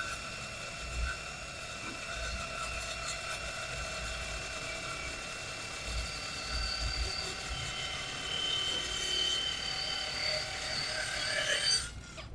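Dekton M21-CN210Plus brushless cordless miter saw with a carbide-tipped steel-cutting blade sawing through thick steel plate: a steady motor whine with a high metallic screech from the blade, growing louder toward the end. It stops abruptly near the end as the cut is finished.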